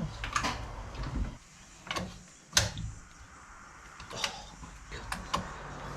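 Scattered knocks and clicks from parts being worked loose on a car being dismantled, the sharpest knock about two and a half seconds in; a low rumble fades out after about a second.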